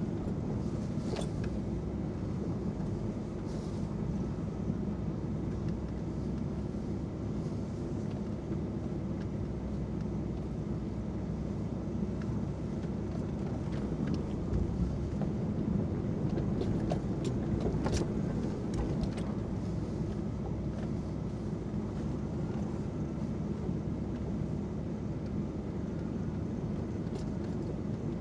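1997 Land Rover Discovery's V8 engine running at low speed, heard from inside the cabin as it crawls off-road through snow. A few short knocks or clicks sound now and then, the sharpest about two thirds of the way through.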